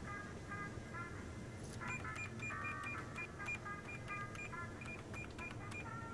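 Cash register beeping as its keys are pressed: many short electronic beeps at a few different pitches in quick, irregular succession, some overlapping, over a low steady hum.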